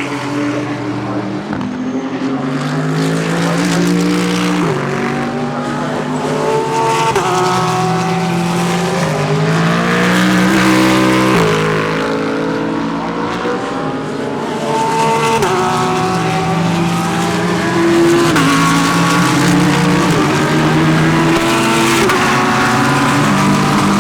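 GT3 race cars running through a corner one after another, several engines overlapping. Their notes step up and down as they shift through the gears under braking and acceleration.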